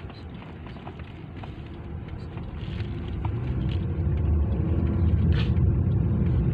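Car driving over a badly potholed road: a low rumble that grows steadily louder and then holds, with scattered small knocks and rattles and one sharper knock about five seconds in.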